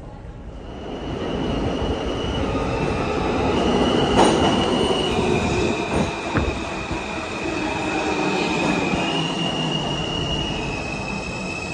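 Kawasaki R160 subway train pulling into an underground station, growing louder over the first couple of seconds. High steady squealing tones shift up and down in pitch over the rumble of the wheels, with a few sharp clanks around the middle.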